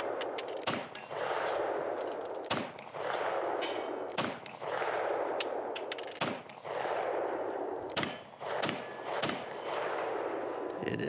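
9mm SIG P320 M17 pistol fired about seven times, single shots roughly two seconds apart at first, then three quicker shots near the end.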